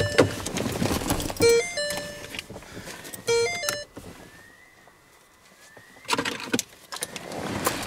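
A short electronic jingle of stepped beeps plays three times, about two seconds apart, over rustling handling noise. After a quiet spell there are two faint rising whistles, then more rustling near the end.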